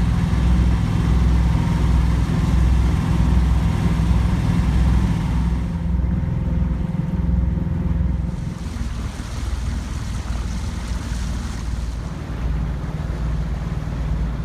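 A 30-foot sailboat's engine running steadily under way, a deep throb with wind noise on the microphone.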